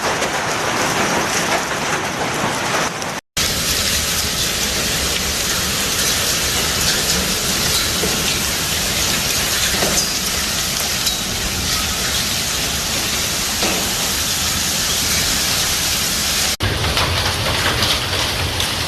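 Heavy downpour from a hailstorm pelting down steadily. The sound is cut twice: a short silent break about three seconds in, and an abrupt change near the end.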